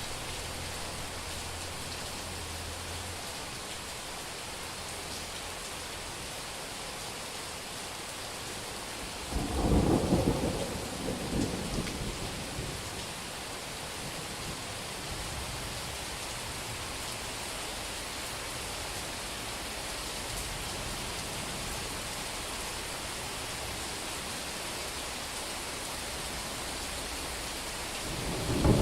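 Summer thunderstorm: steady heavy rain falling on a street. A thunderclap breaks about nine seconds in and rumbles for a few seconds. Another clap begins near the end.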